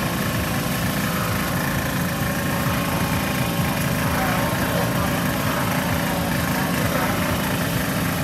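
A small engine running steadily at idle: an even, low drone that does not change.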